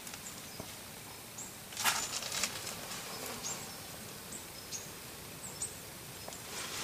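Quiet outdoor ambience: steady low hiss with a few short, high-pitched chirps of small birds scattered through it, and a brief rush of noise about two seconds in.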